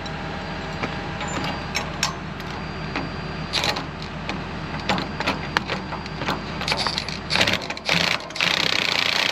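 A diesel engine idling steadily under repeated metallic clicks and clinks of tools and hardware being handled. The low engine hum fades about seven and a half seconds in, and a loud, steady whirring hiss takes over near the end.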